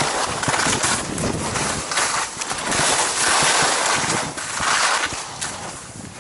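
Strong gusting wind on an exposed mountain summit, buffeting the microphone in surges that swell and ease several times, dropping off near the end.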